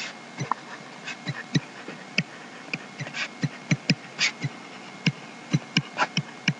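Irregular light taps and clicks of a pen on a writing surface, a few a second, as a diagram is shaded in.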